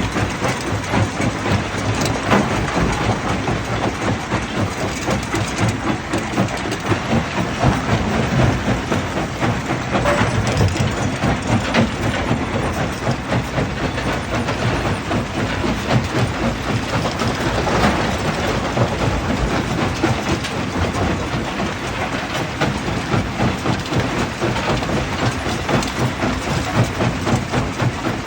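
Dump truck unloading rock: a continuous heavy rumble with dense clattering knocks and no pauses.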